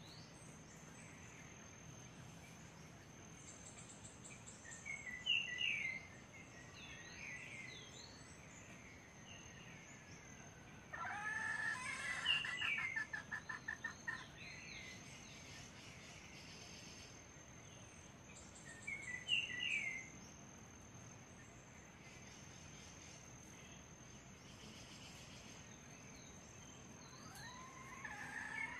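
Wild red junglefowl calling in forest undergrowth: a loud, rapidly pulsed call about eleven seconds in, with shorter, higher bird calls around five and nineteen seconds and another call starting near the end. A steady high-pitched whine runs underneath.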